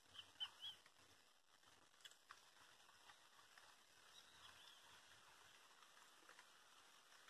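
Faint steady hiss of light rain falling on open countryside. A small bird chirps a few times near the start and again about four seconds in.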